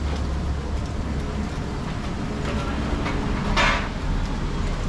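A steady low hum under the noise of a busy eel grill, with one short, louder hiss about three and a half seconds in.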